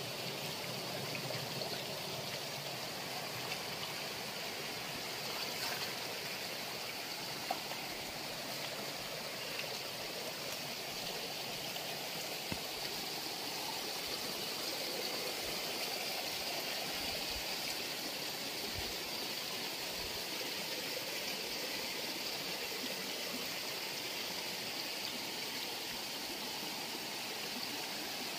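Rainwater runoff rushing down a rocky roadside channel, a steady, even rush of flowing water, with a couple of brief faint clicks.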